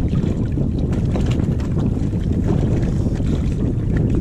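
Wind buffeting the microphone in a steady low rumble, with a few faint small clicks.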